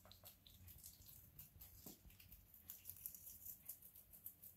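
Degu nibbling a fresh basil leaf: faint, quick, irregular crisp clicks of chewing.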